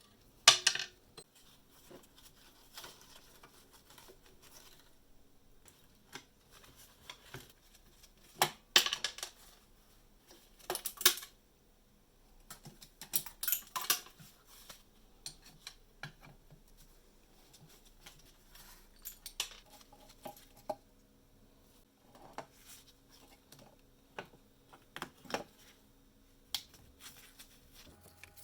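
Small hard metal parts and hand tools clinking, clicking and being set down in irregular handling, with a few sharper clanks: about half a second in, around a third of the way through, and twice more shortly after.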